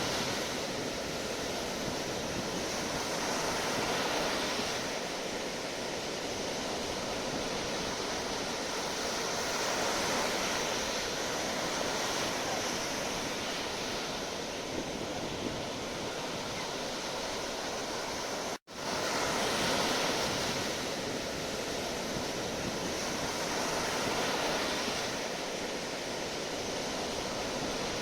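Sea waves washing onto a shore: a steady surf hiss that swells and eases every few seconds. The sound drops out for an instant about two-thirds of the way through, then comes straight back.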